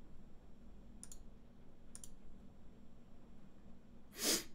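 Two light computer-mouse clicks about a second apart, then a louder, short breathy noise near the end, over a faint steady low hum.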